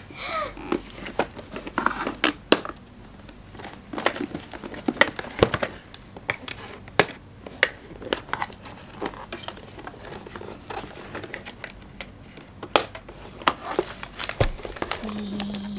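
Plastic and cardboard toy packaging crinkling and being pulled and torn open by hand, with many irregular sharp clicks and snaps.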